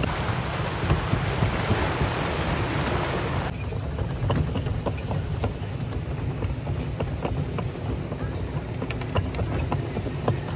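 Wind rumbling on the microphone, with a hiss over it. About three and a half seconds in, the sound changes abruptly and the hiss drops away, leaving the low rumble with faint scattered clicks.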